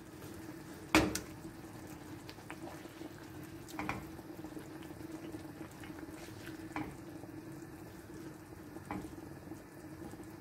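Thick curry gravy simmering in a nonstick pan as a wooden spatula turns whole eggs over in it, with a few light knocks of the spatula on the pan, the loudest about a second in. A steady low hum runs underneath.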